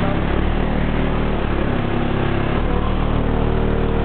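Competition car-audio subwoofer system playing a very loud, steady bass tone during a sound-pressure-level run, heard from outside the sealed vehicle.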